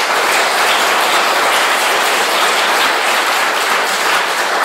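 Audience applauding: loud, dense, steady clapping.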